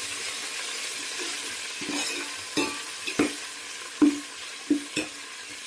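Chopped mint and whole spices sizzling steadily in hot oil in a metal pot. A perforated metal spoon stirs them, knocking and scraping against the pot about six times in the second half, loudest a little after the middle.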